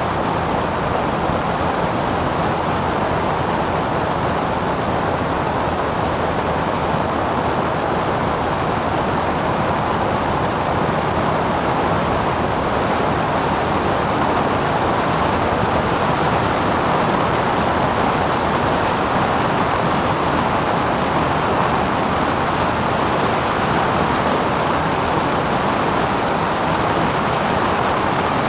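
Cessna 177 Cardinal's engine and propeller running steadily in flight: an unchanging drone under a dense rush of air.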